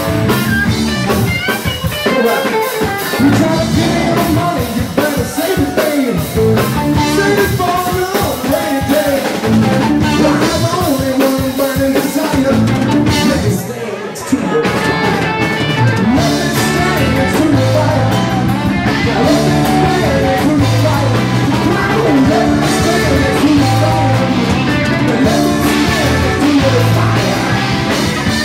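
Live rock band playing loudly, electric guitar over a drum kit, with a brief drop in level about halfway through before the band carries on.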